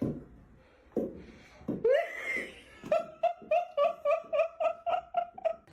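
A person laughing: a couple of short voice sounds, then about three seconds in a rapid, even run of laughs, about five a second, lasting until near the end.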